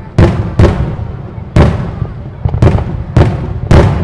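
Fireworks shells bursting in the air: about six loud booms at uneven intervals, each trailing off into a low rumble that runs on between them.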